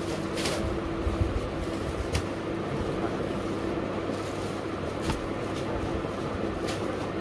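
Steady background hum with a low droning tone, and cloth rustling a few brief times as folded dress fabric is handled and spread out on a counter.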